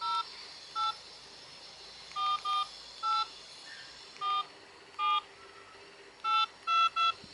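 Mobile phone keypad tones: ten short touch-tone beeps as a ten-digit phone number is keyed in, unevenly spaced, the last three coming quickly together.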